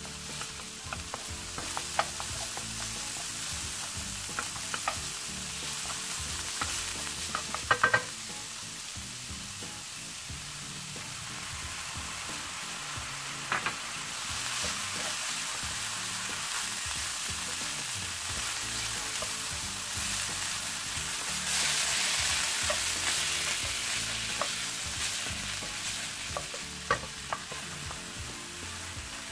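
Ground pork sizzling in chili oil in a hot nonstick frying pan while a wooden spatula stirs it, scraping and knocking against the pan now and then, with a cluster of sharp knocks about eight seconds in. The sizzle grows louder about halfway through and louder again later on.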